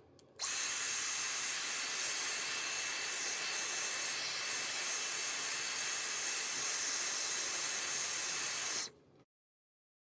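Hairdryer blowing hot air in a steady hiss, heating the phone's back glass to soften its adhesive. It starts about half a second in and cuts off abruptly near the end.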